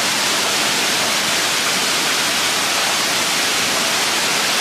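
Steady, even rush of a waterfall, full from recent rain.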